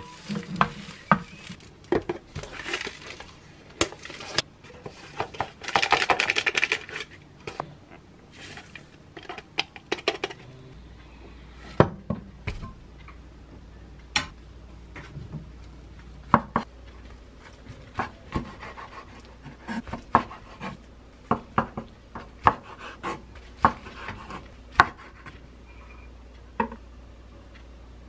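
A spatula tapping and pressing a rolled omelette in a square nonstick pan, then a knife slicing the omelette on a wooden cutting board, each cut ending in a sharp knock on the board.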